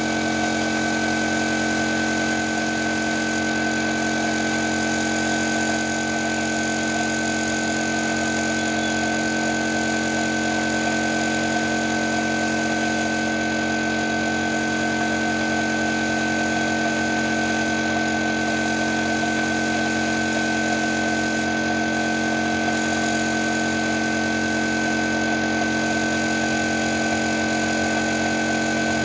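Air compressor running steadily with a constant hum, feeding a spray gun that is applying PU sealer. The spray gun's hiss breaks off briefly every few seconds.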